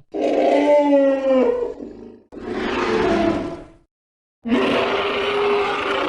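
Three separate designed Protoceratops call sound effects: growling, roar-like animal calls, each cut off cleanly with dead silence between them. The first, about two seconds long, has a pitch that bends and falls away; the second is shorter and rougher; the third, starting about four and a half seconds in, holds a steadier pitch.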